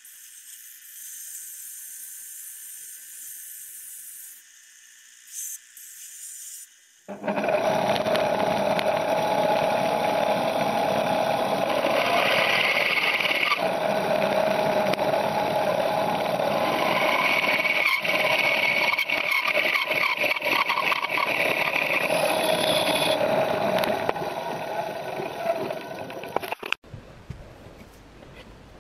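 A power tool running under load, grinding or sanding, for about twenty seconds. It starts suddenly after a faint hiss and cuts off near the end.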